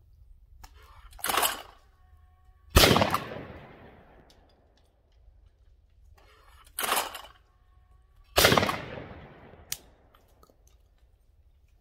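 Two shotgun shots from an over-and-under, about five and a half seconds apart, each ringing on with a long fading echo. Each shot comes about a second and a half after a shorter, sharper crack from the clay thrower launching a clay. A small click follows near the end.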